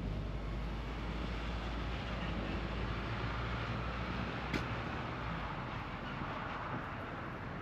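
Steady low rumble of a large vehicle engine going by, with a single sharp click about four and a half seconds in.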